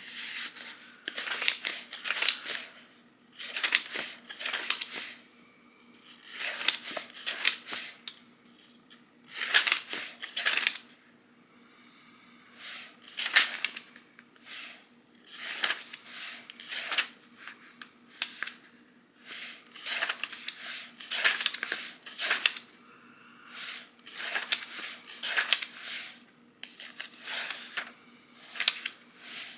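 Paper book pages being turned and rustled, in a string of short bursts with brief pauses between them.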